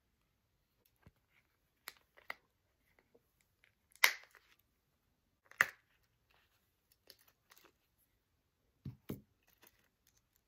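Handling noise as a small pocket knife is pushed into a small coated-canvas pouch and the pouch is pressed shut: scattered soft clicks and rustles, two sharper clicks about four and five and a half seconds in, and two dull knocks near the end.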